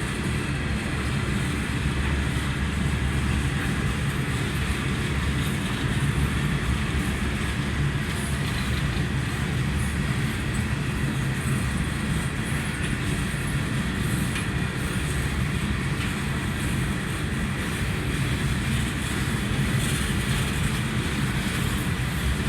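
Coal train's hopper cars rolling past on the rails in a steady low rolling noise of wheels on track; the cars are believed to be empty.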